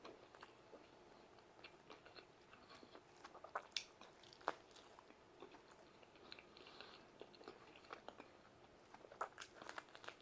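A man chewing a bite of barbecue brisket pizza: faint mouth sounds with scattered wet clicks and smacks, a couple of sharper clicks around the middle.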